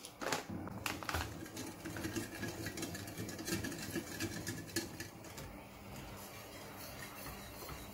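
Wire whisk beating cornflour slurry in a ceramic bowl, its wires clicking and tapping rapidly against the sides. About five seconds in, the clatter gives way to quieter whisking over a low steady hum.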